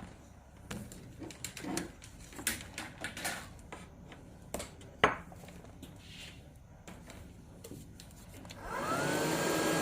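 Scattered small clicks and knocks of handling, then near the end an electric hair dryer switches on, its motor whine rising in pitch and settling into a steady blowing.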